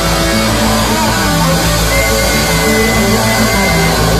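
A live rock band playing loud and without a break: electric guitar, bass and drums.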